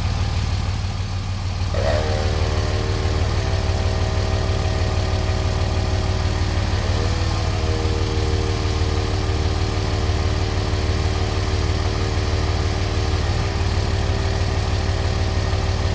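Harbor Freight Pittsburgh 12-volt portable air compressor switching on about two seconds in and running with a steady motor whine that drops in pitch, picks back up, then drops again: the compressor kicking down and back up because the cold diesel's glow plugs are loading the alternator. Under it, the Dodge Ram 2500's diesel engine idling.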